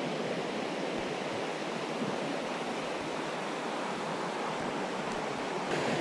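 Shallow mountain stream flowing over stones: a steady rush of water.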